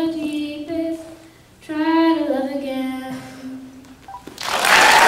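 A girl singing solo without accompaniment, her last phrase ending on a long held note that falls away. Near the end an audience starts applauding, louder than the singing.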